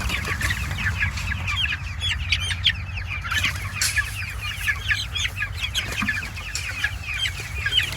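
A flock of young meat chicks peeping and cheeping: many short, high calls overlapping continuously.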